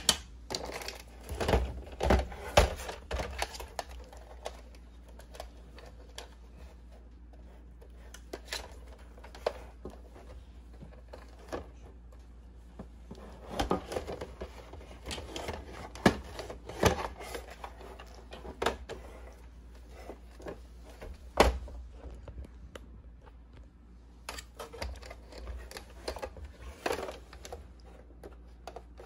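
Scattered clicks and knocks of hard plastic being handled: a toy remote-control pickup's underside and battery compartment, with the battery pack and its small wire connector.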